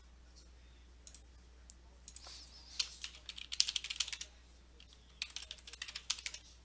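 Typing on a computer keyboard: a single click about a second in, then two quick runs of keystrokes, one about two seconds in and another about five seconds in.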